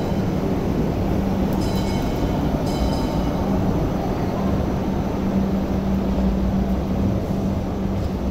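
MTR light rail vehicles moving slowly over curved track, a steady low rumble with a constant electric hum. Brief high-pitched squeals come just before the start, about two seconds in and again about three seconds in.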